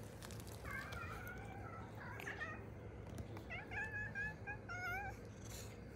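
Domestic cat meowing twice, two drawn-out wavering meows one after the other.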